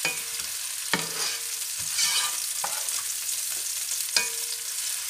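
Sliced onions sizzling in hot oil in a frying pan while a spatula stirs them, scraping across the pan, with three sharper knocks of the spatula against the pan.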